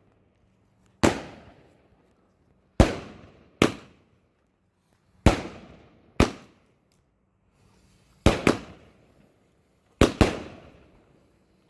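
Fireworks going off: about nine sharp bangs, mostly in pairs about two seconds apart, each fading out in a short echo.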